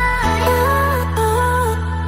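Background music: sustained bass notes under a slow melody of held, gliding notes.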